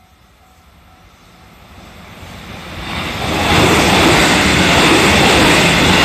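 JR Central 313 series electric train approaching and passing close by: the rumble of wheels on rails swells over about three seconds, then stays loud and steady as the cars go by. A level-crossing bell rings faintly at the start, before the train drowns it out.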